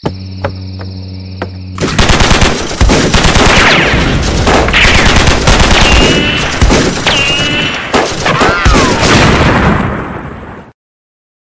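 Dense, rapid machine-gun-style gunfire, an action-film sound effect, after a low steady hum in the first two seconds. It stops abruptly near the end.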